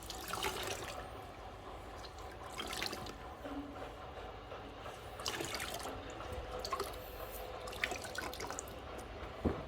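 A cleaning cloth being rinsed and squeezed out in water, with splashes and drips coming in short bursts every couple of seconds and a sharp click near the end.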